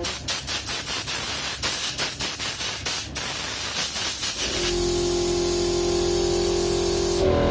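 Electric fan blowing air hard: a loud rushing hiss that flutters in the first few seconds. About halfway through, a steady motor hum joins it, and both cut off suddenly near the end.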